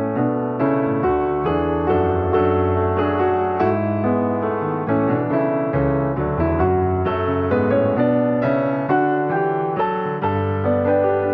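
Background piano music: a steady, gently rhythmic keyboard piece with notes struck several times a second.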